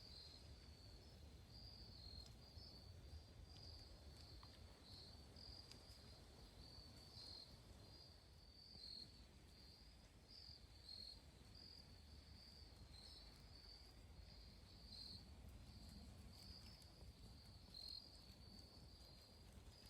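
Faint chorus of crickets chirping in a steady, high-pitched pulsing rhythm, over a low rumble of wind.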